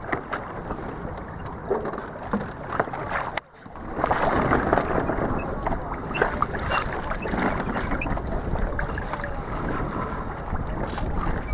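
Wind buffeting the microphone aboard a small sailing dinghy, over water noise, with a few light clicks. The sound drops out briefly about three and a half seconds in, then comes back louder.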